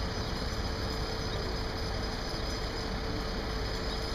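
Heavy engines running steadily: a continuous low rumble with a constant mid-pitched hum over it.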